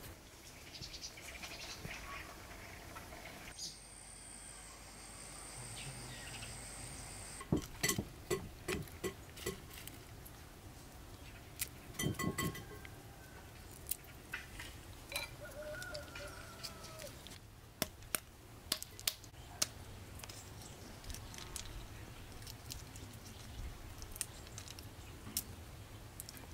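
Walnut shells cracking and clicking as the kernels are picked out of them by hand, sharp clicks coming in short clusters, with birds chirping faintly in the background.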